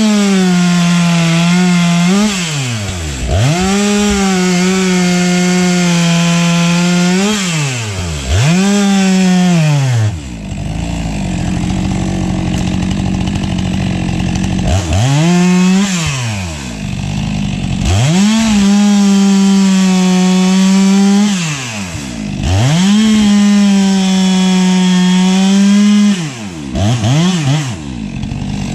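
STIHL MS 462 two-stroke chainsaw bucking logs. The engine is held at full throttle for a few seconds at a time, then drops off and revs back up, about seven times. A stretch of about five seconds, a third of the way in, runs at lower speed.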